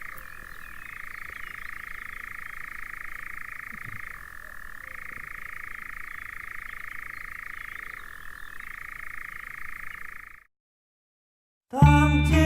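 A night bird's long, unbroken trill at one steady pitch, like a car alarm, with brief dips about three times. It cuts off suddenly after about ten seconds.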